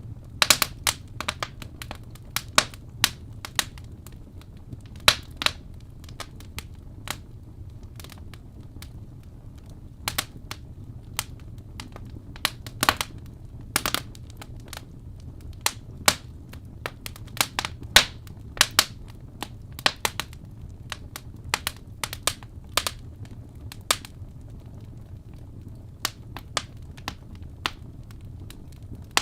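Wood fire in a fireplace crackling: irregular sharp pops and snaps from the burning logs over a steady low rumble of the flames.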